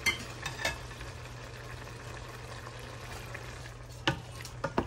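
Shrimp, vegetables and tortellini sizzling in a sauté pan with a steady hiss. A few light clicks and knocks come near the start and again near the end.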